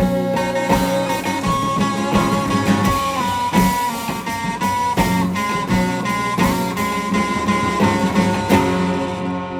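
Instrumental passage of a song: guitars and drums with a sustained lead melody line over a steady bass, beginning to fade out near the end.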